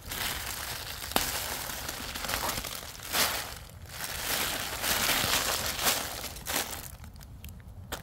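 Dry fallen leaves and a dirty, weathered plastic sheet crinkling and rustling in irregular bursts as a hand pulls the plastic up out of the leaf litter, with a sharp click about a second in. The crinkling dies down about seven seconds in.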